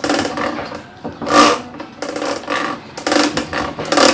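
A bolt on a washing machine's drive mechanism being undone with a 13 mm wrench: five short mechanical bursts, about one a second.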